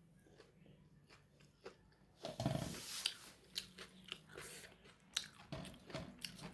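Someone biting into crisp fried pakora and chewing it with crunching sounds close to the microphone. It is quiet for about two seconds, then comes a loud crunching bite, followed by repeated crunchy chews.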